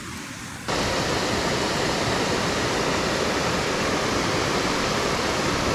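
Steady rushing of water pouring out at a dam spillway, setting in abruptly about a second in.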